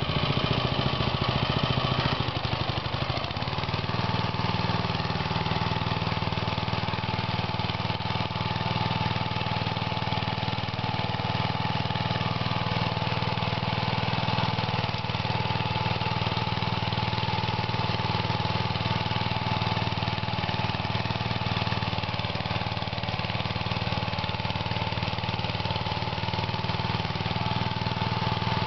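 Small engine of a walk-behind tiller (mini rotovator) running steadily while tilling soil; the engine note shifts a few seconds in, then holds steady.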